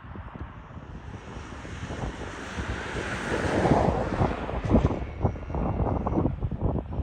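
Wind buffeting the microphone outdoors: an uneven, gusty rumble that grows stronger partway through, with a rushing hiss swelling and then easing around the middle.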